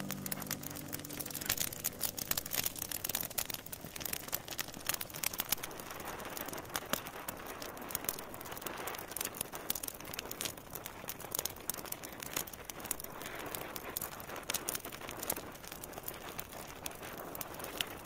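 Open fire crackling in a fireplace, with many sharp irregular pops and snaps over a steady hiss of flame.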